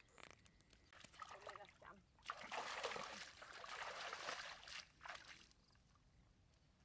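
Shallow muddy water splashing and sloshing as hands push it through a channel, with a few short splashes first and then a louder stretch of about two and a half seconds in the middle.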